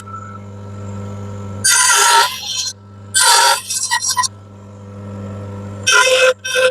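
Bandsaw running with a steady motor hum, cutting into feather edge board three times, each cut a loud whining rasp lasting about a second.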